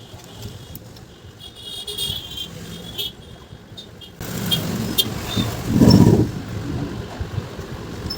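A motor vehicle going by, its noise rising suddenly about four seconds in and at its loudest around six seconds, with a few light clicks.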